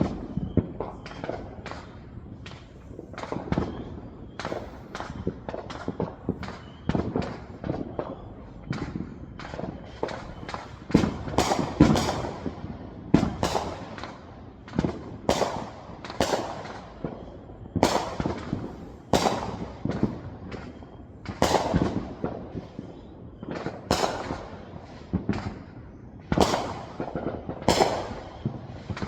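Many fireworks and firecrackers going off, sharp bangs and pops in quick, irregular succession with short echoing tails. The louder bangs come more often from about eleven seconds in.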